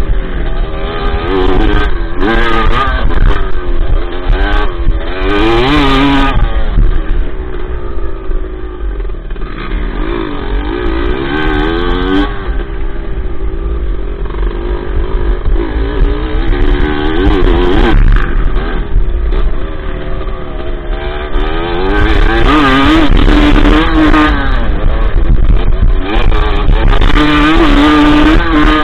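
Dirt bike engine heard up close from the bike itself, revving up and dropping back again and again as the throttle opens and closes through the turns and straights.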